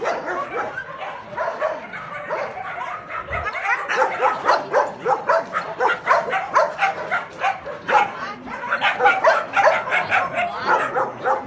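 Many kennelled shelter dogs barking at once, a dense chorus of overlapping barks and yips with no pause, getting louder about four seconds in and again near the end.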